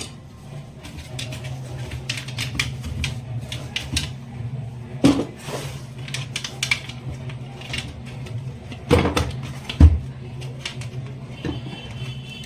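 Irregular clicks and clinks of small metal parts being handled and tapped while working on a mixer grinder, with a few louder knocks about five seconds in and again around nine to ten seconds in, over a steady low hum.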